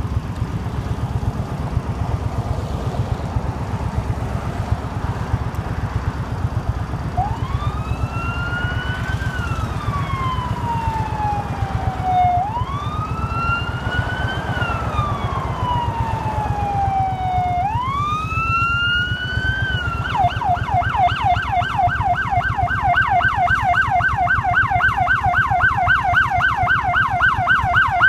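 A 2005 Suzuki Boulevard C50's 805 cc V-twin idling at a standstill, while an emergency vehicle siren comes in about a quarter of the way through. The siren wails slowly up and down three times, then switches to a fast yelp that gets a little louder toward the end.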